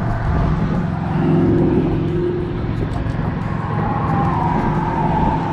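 Steady rumble of passing road traffic with a tire hum that comes up about halfway through.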